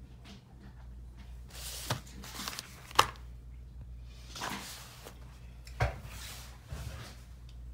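Objects being handled on a desk: short rustles and a few knocks and clicks. The sharpest click comes about three seconds in and a dull thump near six seconds, over a low steady hum.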